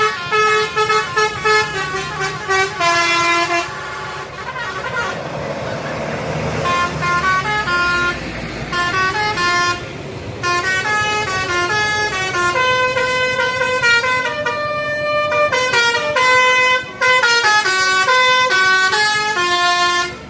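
A bus's 'telolet' multi-tone air horn plays a quick melody of short notes that step up and down in pitch. A noisier stretch with fewer notes comes between about four and seven seconds in.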